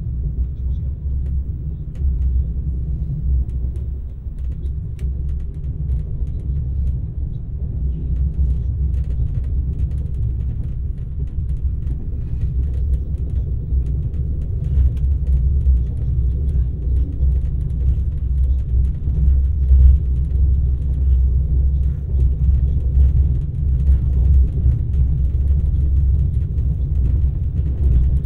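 Steady low rumble of an Alfa Pendular Class 4000 tilting electric train running on the line, heard from inside the passenger carriage, with faint clicks and rattles over it.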